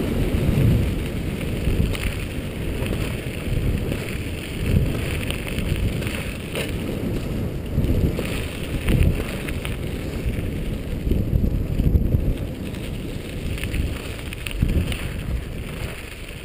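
Wind buffeting the microphone over the rolling rumble of a dog scooter's tyres on a gravel trail, with scattered bumps and knocks from the rough ground.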